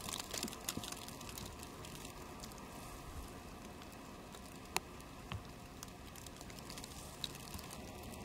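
Heavy wet snow falling: a faint, steady pattering hiss with a few scattered soft ticks.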